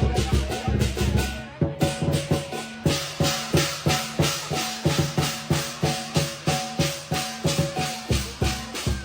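Rhythmic music with a steady beat of about three to four strokes a second, held pitched notes and shaker-like percussion. About one and a half seconds in the beat breaks off briefly and then comes back.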